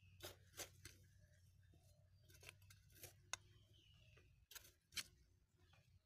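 Faint hand work in loose soil: a few short scrapes and clicks as fertilizer and earth are worked around the base of the tree, the sharpest about five seconds in.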